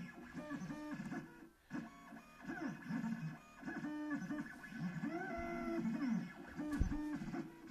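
Stepper motors of a Shapercube machine driving its gantry along rods on IGUS plastic linear bearings: a whine that rises, holds and falls in pitch with each move, with one short pause. A single low knock near the end.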